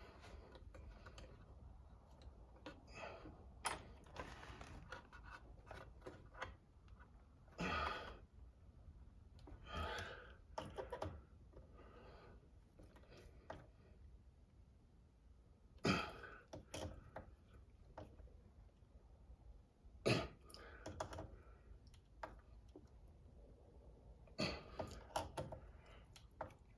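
Faint, scattered clicks and knocks of parts and tools being handled while a wheelie bar is fitted to an RC car, with a few short breathy sounds between them.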